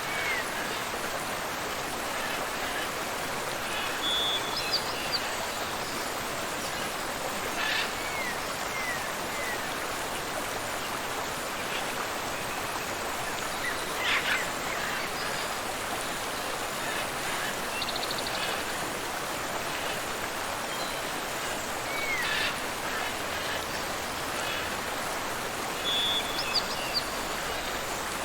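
Steady rush of a tropical waterfall and river, with short bird calls and chirps breaking in every several seconds.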